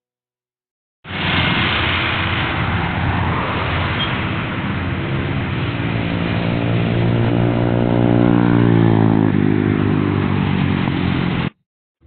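Bajaj Avenger 220 Cruise's single-cylinder engine running through an aftermarket Cobra exhaust, starting about a second in. Its pitch climbs slightly, then drops near the end before the sound cuts off abruptly.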